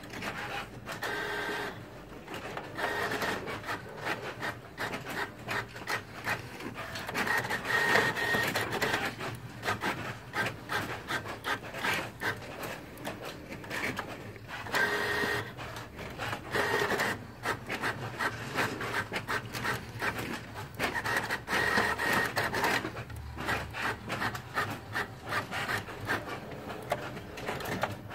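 Epson WorkForce WF-5620 inkjet printer printing pages, its print head and paper feed working in a quick run of clicks and strokes, with short motor whines every few seconds.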